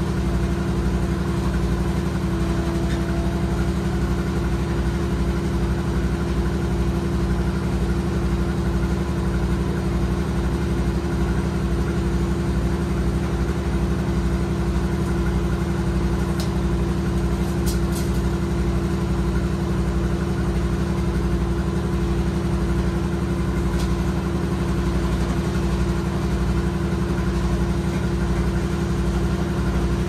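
Portable band sawmill's engine idling steadily, not under load. A few faint clicks sound over it in the second half.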